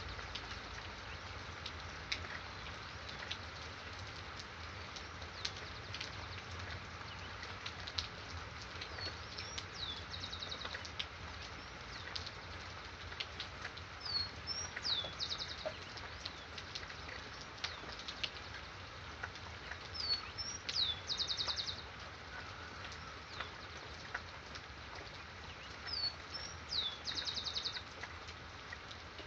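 Steady rain with scattered drips, and a songbird repeating the same short song four times: a couple of quick whistled notes followed by a fast trill.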